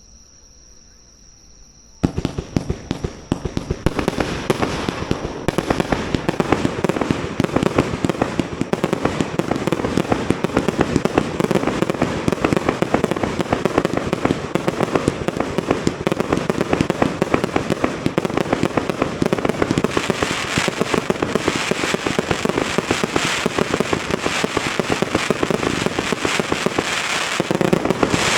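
Insects chirring faintly, then about two seconds in a fireworks barrage breaks out. It is a dense, unbroken run of rapid bangs and crackling that keeps going.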